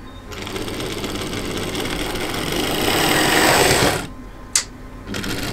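OO gauge model Class 29 Bo-Bo diesel locomotive running on the track, its small electric motor and gears whirring noisily with wheel rumble, growing louder. The whirr stops suddenly about four seconds in, a single click follows, and it starts again near the end.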